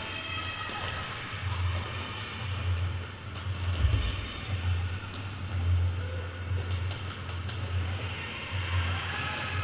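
Quad roller skate wheels rolling on a hall floor during roller derby play: a steady low rumble with a few sharp clicks of skates and contact.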